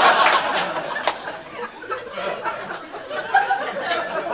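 Comedy club audience laughing at a punchline, the laughter loud at first and dying down over the first second or two, with scattered chuckles after.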